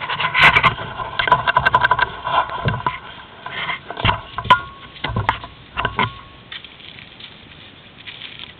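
Sled dogs being harnessed on packed snow: a fast run of clicks and scuffles in the first few seconds, then scattered sharp knocks, dying down after about six seconds.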